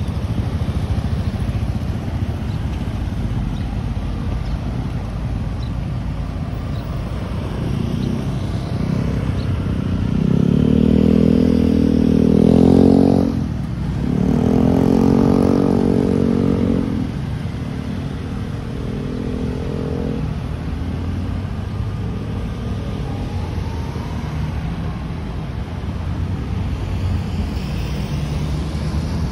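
Street traffic rumbling steadily, with motor vehicles, most likely motorcycles, passing close from about ten seconds in: one engine rises in pitch as it speeds up, then drops off, and a second passes just after before the hum settles back.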